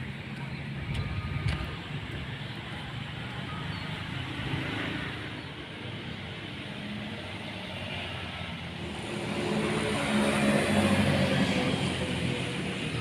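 A bus engine running amid road traffic noise. It grows louder about nine seconds in, with a steady low hum, and eases off near the end.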